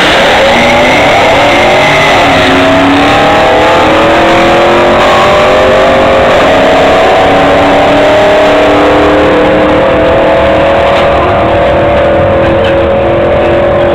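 Two drag-racing cars accelerating at full throttle down the strip, their engines climbing in pitch and dropping back at each gear change as they pull away.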